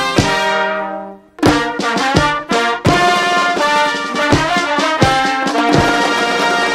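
Brass band music with drums: a held chord, a short break about a second in, then a run of short brass chords punctuated by drum strikes, ending on a long held chord.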